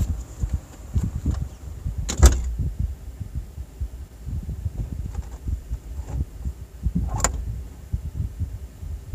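Door of a parked Jeep Cherokee shutting with a sharp knock about two seconds in, heard from inside the cab, then low muffled rumbling and one more knock near the end. The engine is off after a no-start.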